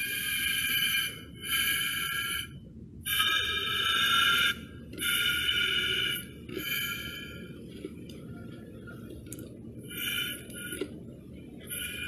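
Compressed-air blow gun pumping air into two plastic bottles through their caps: hissing with a high whistle in repeated blasts about a second long as the trigger is squeezed and let go, pressurising the bottles.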